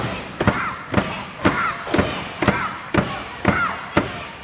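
A steady beat of heavy thumps, about two a second, each followed by a short shout, in a large echoing hall.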